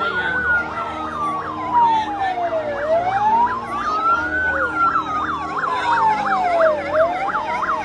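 Emergency-vehicle sirens sounding together: a slow wail rising and falling about every four seconds, over a fast yelp sweeping up and down about three times a second.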